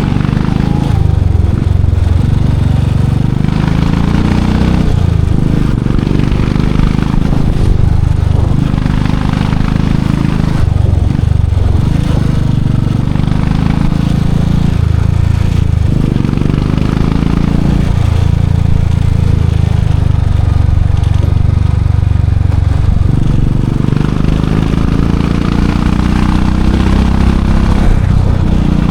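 Royal Enfield Classic 500's single-cylinder engine and exhaust under way. The engine note rises and then drops sharply several times as the bike pulls through the gears, and it holds steadier for a few seconds in the second half.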